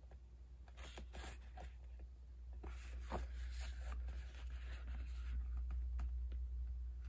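Hands handling GoPro Hero 11 Black packaging: scraping, rustling and small clicks of cardboard and plastic, busiest in the middle, over a steady low hum.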